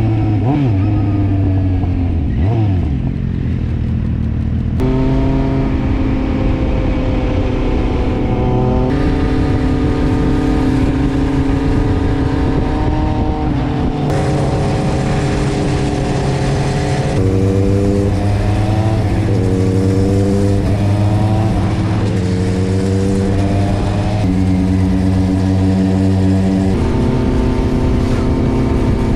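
Kawasaki Z750 inline-four engine running under way, its pitch climbing while it accelerates and holding level while it cruises. The engine note jumps abruptly in pitch and loudness several times.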